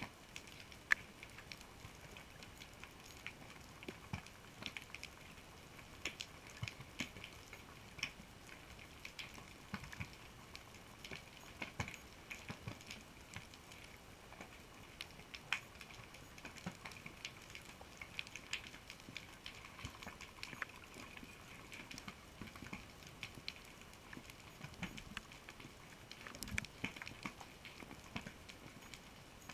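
Underwater reef ambience heard through a GoPro's waterproof housing: a faint hiss with a steady, irregular scatter of sharp clicks and crackles.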